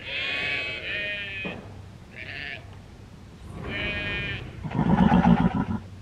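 Sheep bleating several times, hungry according to the farmer. Near the end a louder, rough, lower sound lasts about a second.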